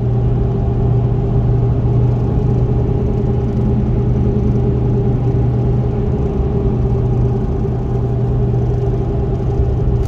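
Pickup truck cruising on a country highway, heard from inside the cab: a steady deep engine and road drone that holds even throughout.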